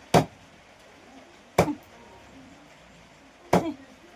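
Three heavy knife chops into chicken on a cutting board, each a single sharp strike, spaced about a second and a half to two seconds apart.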